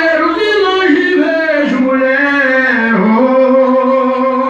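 A man singing long held notes, his voice sliding down in pitch between them.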